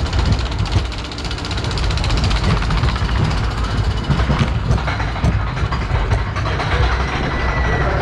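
Portable steel roller coaster train being hauled up the chain lift hill: a rapid, even clicking of the chain and anti-rollback dogs over a low rumble of the lift drive.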